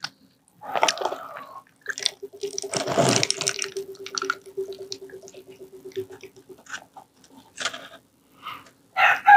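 Toy water dispenser's small pump whirring steadily for about four seconds as water pours into a cup, then cutting off. A rooster starts crowing at the very end.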